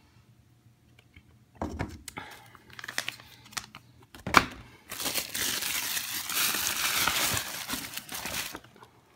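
Paper shopping bag being handled and rummaged through by hand, crinkling and rustling. Scattered rustles and taps, a sharp knock about four seconds in, then several seconds of dense, continuous crinkling that stops just before the end.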